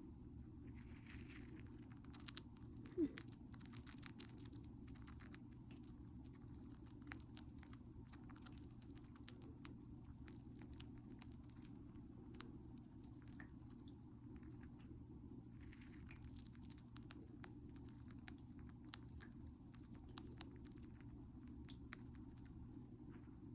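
Hamster gnawing and crunching at food: faint small sharp crunches and clicks, thickest in the first half, over a steady low hum.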